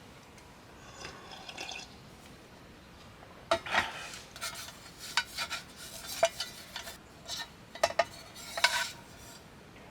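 A metal utensil clinking and scraping against cookware, as in stirring. The clinks are sharp and irregular and begin about three and a half seconds in.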